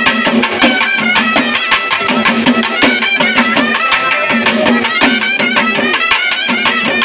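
Kerala temple festival percussion ensemble: many drums and cymbals striking in a dense fast rhythm, with a double-reed pipe holding a shrill melody over them.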